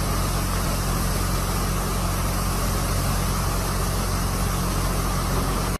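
Floodwater rushing: a steady, loud noise with a strong low rumble.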